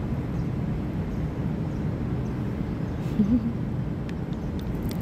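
Steady low outdoor background rumble, with one brief low-pitched sound about three seconds in.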